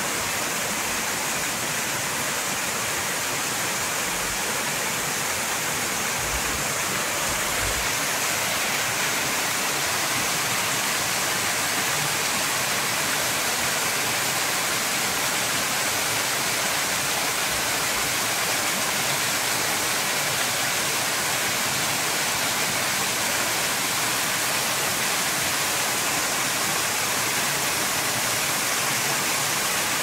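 Small waterfall cascading over rocks into a pool: a steady, even rush of falling and splashing water.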